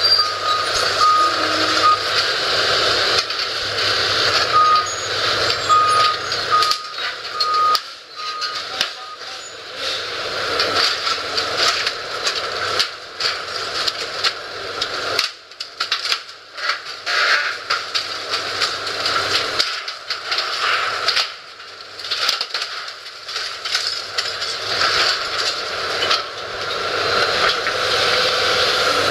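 Demolition excavator with a hydraulic sorting grab tearing apart a steel-framed building clad in metal sheeting: the engine runs under repeated crashes and clatter of sheet metal and steel frame being ripped and crushed. A reversing alarm beeps about once a second for the first nine seconds or so.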